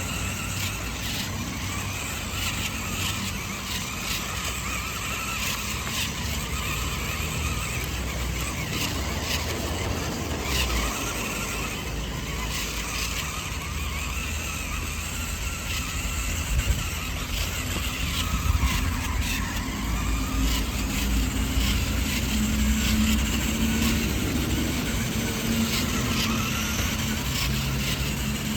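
Mini remote-control toy monster truck running, with a continuous whirring and scattered clicks and knocks. In the last third a steady low engine-like hum joins in.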